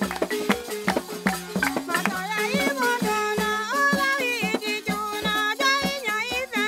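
Balafons, West African wooden-keyed xylophones with gourd resonators, played with mallets in a quick run of struck notes over a hand drum. About two seconds in, singing joins the instruments.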